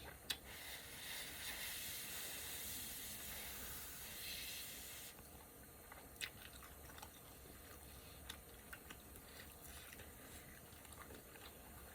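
Close-miked chewing of crispy air-fried vegetable potstickers, with small crunches and clicks from the mouth. A steady hiss runs through the first five seconds or so and cuts off suddenly.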